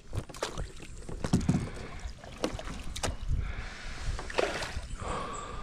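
Water splashing with irregular knocks and clicks as a hooked fish is brought in and landed.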